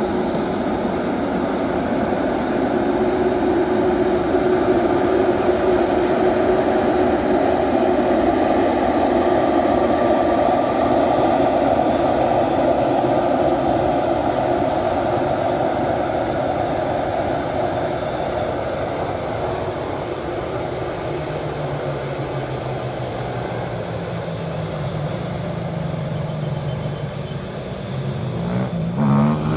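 Jet engines of an Emirates Airbus A380 running as the airliner moves past, the noise swelling to a peak and then slowly fading away. A lower steady hum comes in during the second half.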